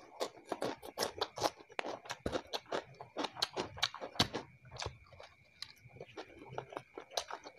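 Close-miked chewing of fried rice with raw cucumber: crisp crunches and wet mouth clicks several times a second.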